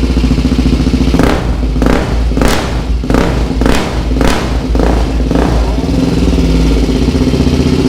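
Custom 353cc single-cylinder Honda Titan motorcycle engine running on a new stainless-steel 2-into-1 exhaust, just after its first start. About a second in, the throttle is blipped some seven times in quick succession, roughly every half second, and the engine then drops back to idle with a deep, thick exhaust note.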